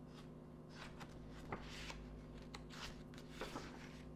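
A picture book's paper page being turned by hand: faint rustling with a few small ticks, over a steady low hum.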